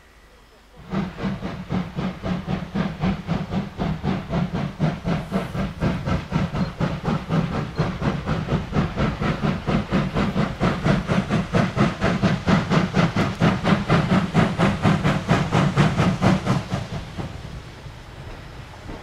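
Ty42-107 steam locomotive working under steam as it approaches, its exhaust chuffing evenly at about four beats a second with a steady hiss. The chuffing stops about two seconds before the end as steam is shut off, leaving a quieter rumble.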